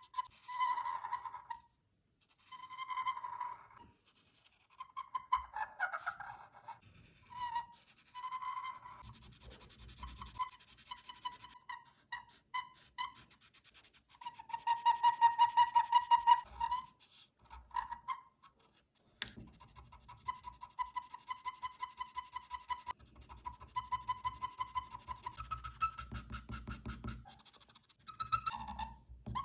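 A drawing tool squeaking against the drawing surface in repeated strokes of one or two seconds, with short pauses between them. Each squeak is a pitched squeal made of fast rasping pulses.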